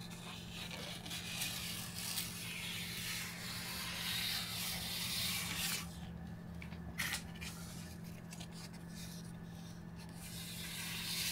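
Calculator paper on a handheld 3D-printed roller rubbing and rolling across a plastic cutting mat as it soaks up ketchup, a dry scratchy rustle that pauses briefly about six seconds in, over a steady low hum.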